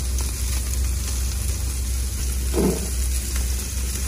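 Steady low hum with an even hiss of food sizzling on the grill, and a brief pitched sound about two and a half seconds in.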